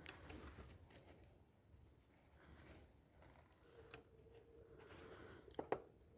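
Faint handling noises of a length of solder wire being fitted as a makeshift antenna: light clicks and rustling, with two sharp clicks near the end. A faint steady hum comes in during the second half.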